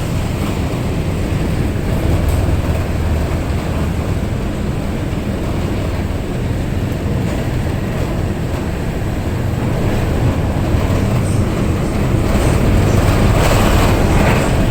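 Ferry's engines running with a steady, loud low rumble during berthing, growing louder near the end.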